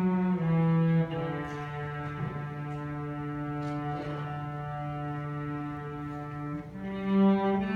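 Student string orchestra playing a slow passage of sustained bowed notes, with a long low note held for about five seconds before the line moves up in pitch near the end.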